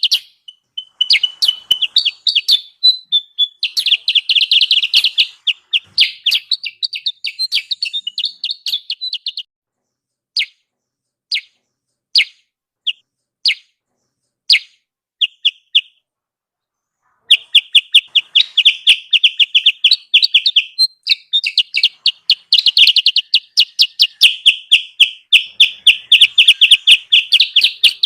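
Lure recording of kutilang sutra bird calls: fast, high chattering trills of rapid repeated notes. About a third of the way in they thin to scattered single chirps, then dense chattering resumes for the rest.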